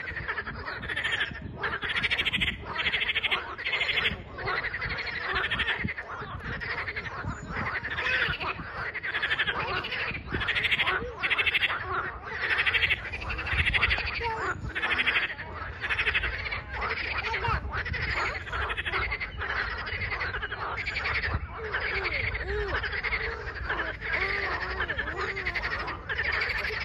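A chorus of many frogs calling at once from a pond, their calls overlapping into a continuous din that swells and dips every second or so.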